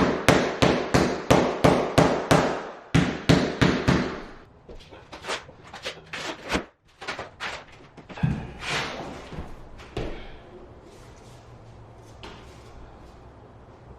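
A hammer tapping vinyl click planks to seat their locking joints: a quick run of sharp knocks, about three a second, for the first four seconds, then a few scattered, quieter knocks and faint handling noise.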